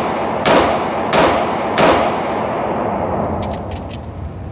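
Three gunshots fired about two-thirds of a second apart, each followed by a ringing echo, then a few faint sharp clicks near the end.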